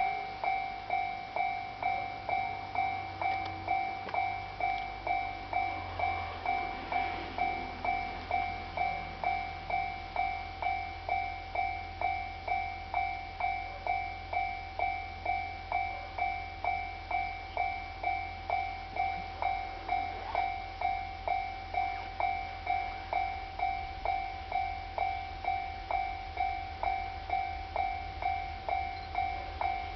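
Japanese railway level-crossing warning bell ringing: an electronic clang repeating evenly, a little under twice a second, warning of an approaching train. A low rumble rises underneath from about six seconds in.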